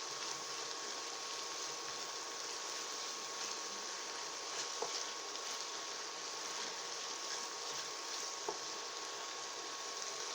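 Swiss chard stems and onion sizzling in olive oil in a pan, a steady sizzle with a couple of small pops. The stems are cooking in the liquid they give off, with no water added.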